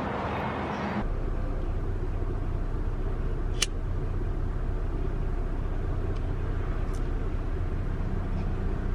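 Steady low rumble of background noise, like a car running or road traffic, that changes abruptly about a second in and again near the end.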